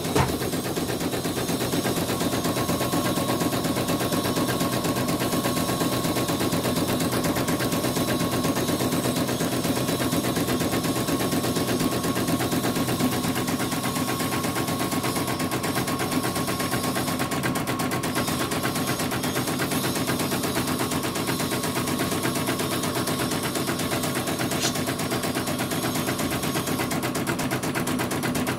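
CNY portable embroidery machine stitching a design, its needle mechanism giving a fast, steady rattle of stitches as the hoop moves. This is a test run of a machine brought in dead after power cuts.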